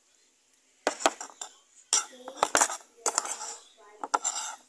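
Metal spoon clinking and scraping against a cup while scooping up rice, a run of sharp clicks in small clusters starting about a second in.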